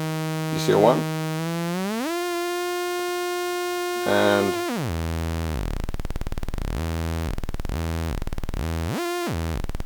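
DIY modular synthesizer oscillator (VCO) playing a buzzy, harmonic-rich tone whose pitch is bent by a joystick: it holds, glides smoothly up about a second and a half in, holds again, drops to a low buzz about halfway, then swoops up and back down twice near the end.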